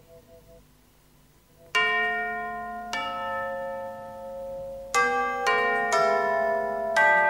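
Theme music played on bell-like chimes: after a faint fading tone and a moment of quiet, struck notes ring out about two seconds in, then a slow melody of about five more strikes, each note left ringing into the next.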